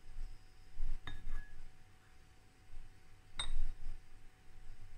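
A small handheld egg strainer clinking against a small ceramic bowl as an egg is tipped in from it: two sharp clinks with a short ring, about a second in and, louder, about three and a half seconds in.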